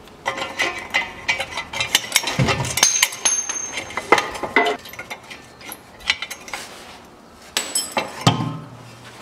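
Rusted exhaust pipe and resonator of a Chevrolet Niva being pried and knocked apart at a clamped joint with a metal tool: a rapid run of metallic clinks, knocks and scrapes with a brief ringing note. It goes quiet for a couple of seconds in the middle, then a few more knocks come near the end.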